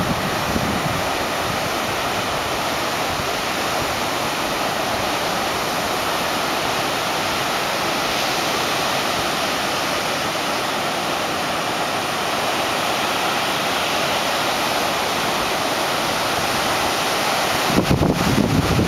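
Ocean surf from a hurricane swell breaking along the beach, a steady rush of waves. Near the end, wind buffets the microphone in a few low thumps.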